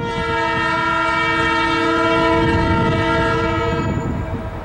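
Diesel locomotive air horn of an approaching EMD SD40-2 freight locomotive, one long chord-like blast that holds steady for nearly four seconds and then stops, over a low rumble.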